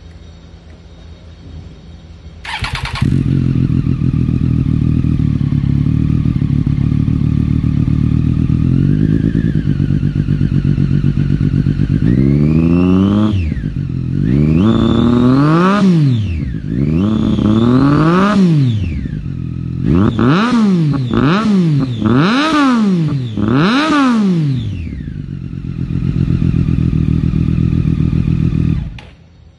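Triumph Daytona 675's three-cylinder engine, breathing through an SC-Project GP M2 aftermarket exhaust, starts up about three seconds in and idles. It is then blipped up and down about half a dozen times, settles back to idle and is switched off near the end.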